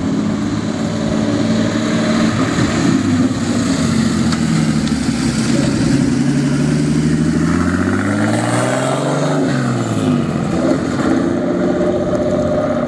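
Turbocharged Datsun 240Z's engine and exhaust as the car rolls close past and pulls away. The engine pitch climbs for a couple of seconds under throttle and falls back about three-quarters of the way through, then the car keeps running steadily as it moves off.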